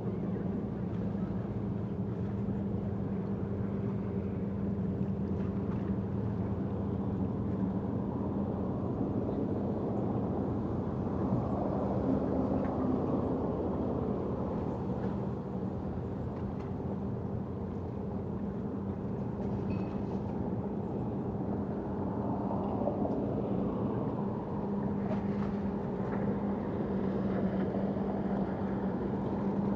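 Steady low engine drone with a hum held on one pitch, swelling twice along the way: distant motor traffic from cars and aircraft.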